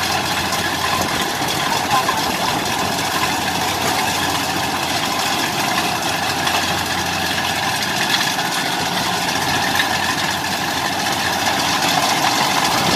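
Rice combine harvester's engine and machinery running steadily.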